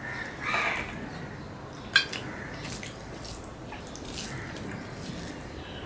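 Close-miked wet chewing and lip smacks from a mouthful of rice and sticky rice-flour greens eaten by hand, with one sharp click about two seconds in.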